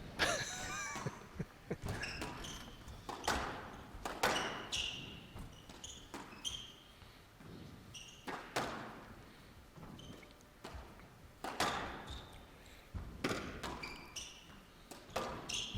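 Squash rally in an indoor court: the ball cracks off rackets and walls about once a second, with short high shoe squeaks on the court floor between the shots.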